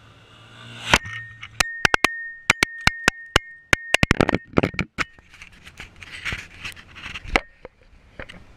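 A GoPro action camera taking a hit and tumbling on asphalt, heard through its own microphone: a loud knock about a second in, then a rapid run of sharp clicks and knocks over a steady high tone for about three seconds. After that comes scraping and rustling as the camera is handled, with one more sharp knock near the end.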